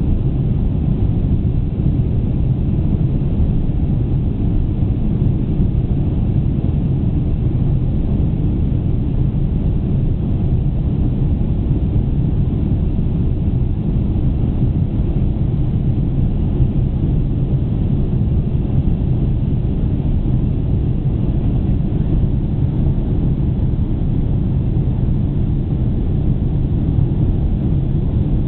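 Steady low rumble of a Boeing 747-400 in flight, heard inside the passenger cabin: the jet engines and the rush of air along the fuselage.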